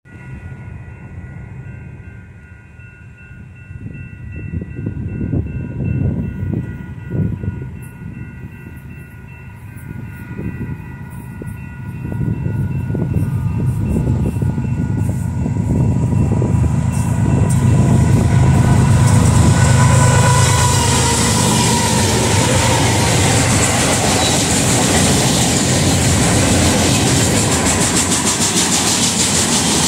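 Union Pacific freight train with diesel locomotives approaching and passing: a horn chord sounds steadily in the first dozen seconds, then the locomotives grow louder, loudest about 20 s in, and give way to the steady rumble and clatter of loaded flatcars rolling by.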